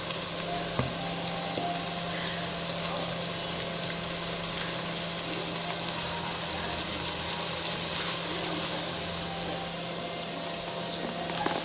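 Chicken intestines simmering and sizzling in a stainless steel pot on an electric cooktop, a steady hiss with a low hum underneath. A single sharp click sounds about a second in.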